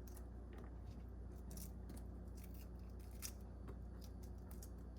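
Raw red onion slices being pulled apart into rings by hand, giving faint, crisp snapping and crackling ticks at irregular moments, over a low steady hum.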